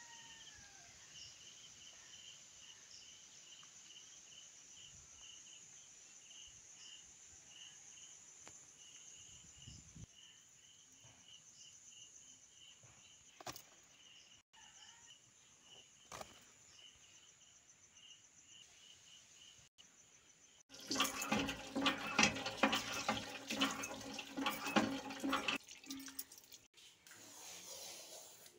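Garden ambience: a steady high hiss with a small bird chirping about twice a second. About three-quarters of the way through, a much louder rough noise lasts about five seconds and then stops.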